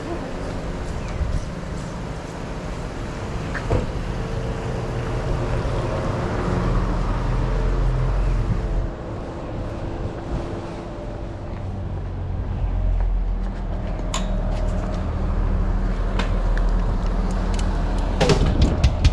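Steady rumble of a moving vehicle heard from inside, with a low steady hum and a few brief clicks, growing louder near the end.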